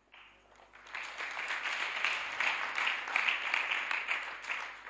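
Congregation applauding, swelling about a second in and dying away near the end.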